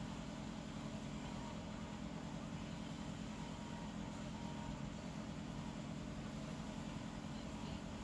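Steady low hum with a faint hiss, unchanging throughout; no snoring or breathing rhythm is heard.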